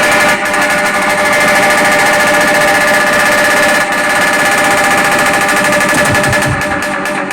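Large DJ sound system playing at full volume: a fast, rattling machine-gun-like roll over held synth tones, heavily distorted, with a clearer beat coming in near the end.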